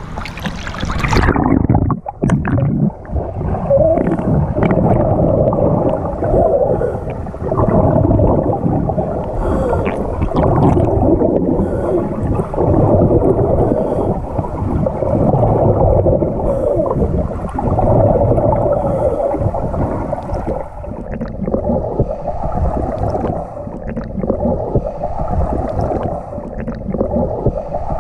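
A splash in the first second or two as the camera goes under, then muffled underwater rushing and bubbling heard through the submerged camera, swelling and easing about every two seconds.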